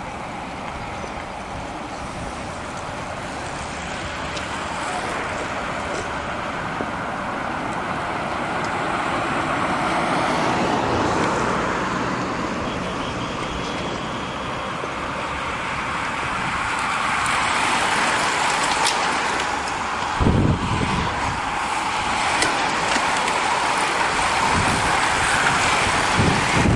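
A pack of racing bicycles approaching and passing close: a rushing of many tyres on asphalt that swells as the bunch comes by. Short low thumps about twenty seconds in and again near the end.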